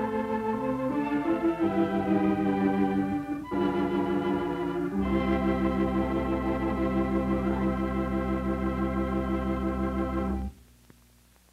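Closing title music: sustained chords, then a long final chord held about five seconds that cuts off abruptly near the end, leaving only faint film hiss with a few crackles.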